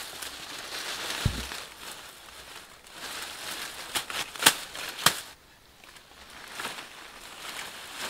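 Rustling and crackling with a few scattered sharp snaps or knocks, the loudest about four and a half seconds in.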